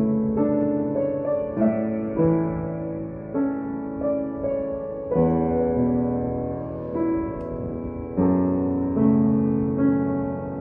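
Upright piano played slowly and softly: a melody over changing chords, the notes ringing on into each other.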